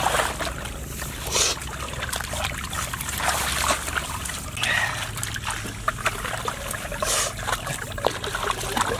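Shallow muddy water trickling and splashing as it is scooped and thrown out of a ditch with a flat hand scoop, in irregular splashes.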